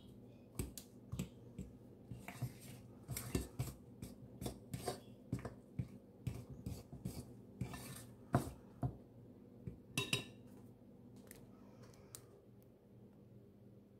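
A hand mixing flour and bread dough in a glazed ceramic bowl: irregular soft knocks and scrapes against the bowl, a few a second, thinning out about three seconds before the end.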